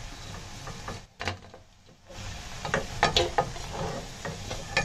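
Hot oil sizzling as fritters deep-fry in a kadhai, with a metal slotted spatula scraping and knocking against the pan several times in the second half as they are lifted out.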